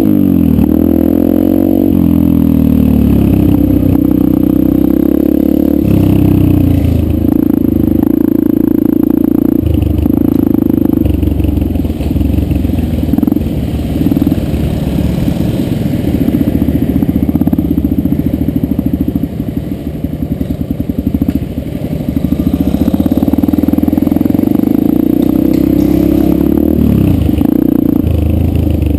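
Yamaha 125 dirt bike engine running hard on a trail ride. Its revs drop and climb again a few times, and it eases off briefly past the middle.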